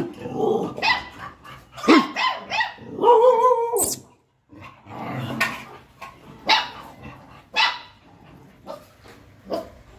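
Kombai puppies barking: a run of short barks with pauses between them, and one longer drawn-out call about three seconds in.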